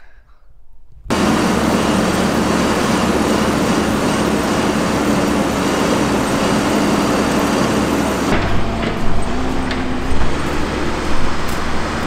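Diesel engine of a John Deere 310SJ backhoe loader running steadily, heard close from the operator's seat. It starts abruptly about a second in, and after about eight seconds it turns to a deeper, more distant rumble with a few knocks as the machine works on snow.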